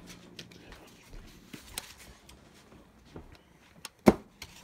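Light handling and movement noises while a paper plate of hot dogs is carried: scattered soft clicks and rustles, with one sharp knock about four seconds in.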